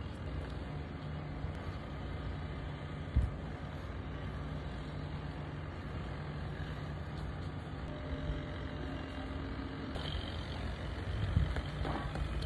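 Steady low hum of distant vehicle traffic, with a single knock about three seconds in. Near the end a small child's running footsteps on the dirt path come closer.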